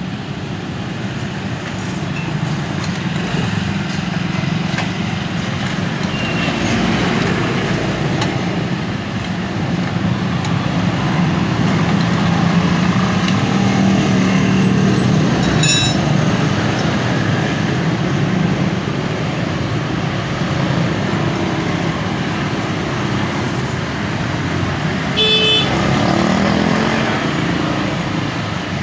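Steady road traffic with the engines of passing vehicles. A short horn toot sounds about halfway through, and another near the end.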